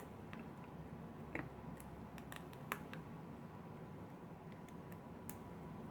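Faint, scattered clicks and taps from a mains plug being handled and opened, its screw just taken out, over quiet room tone.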